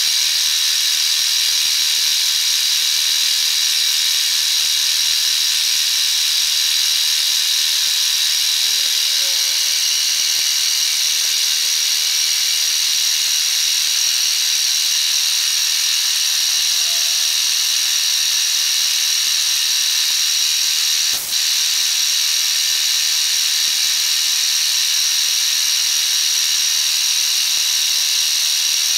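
Milling machine spindle running a 1/8-inch end mill through 316 stainless steel plate: a steady, high-pitched whine and hiss of the cut. It breaks off for an instant about 21 seconds in.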